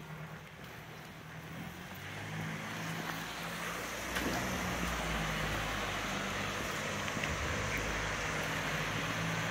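Steady hiss of rain on a wet street, growing louder over the first four seconds, over the low hum of a car engine idling.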